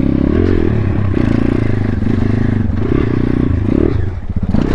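Thumpstar 140cc pit bike's single-cylinder four-stroke engine running, its revs rising and falling, with a short dip about four seconds in.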